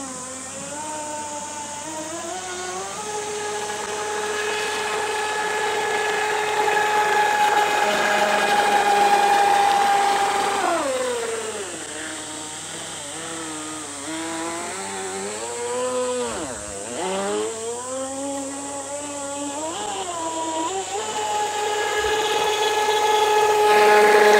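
Radio-controlled speed boat's motor running at speed, a steady high whine. About halfway through the pitch drops and wavers up and down as the throttle eases and picks up again, then climbs back to a steady high whine near the end.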